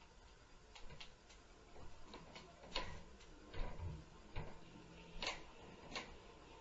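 Irregular knocks and thuds from the apartment upstairs, about eight sharp bumps spread unevenly, the heaviest and deepest thud a little past halfway.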